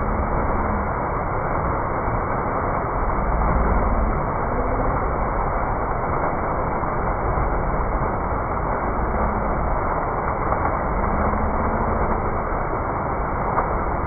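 Fountain jets shooting up and splashing back into the basin: a steady rush of falling water.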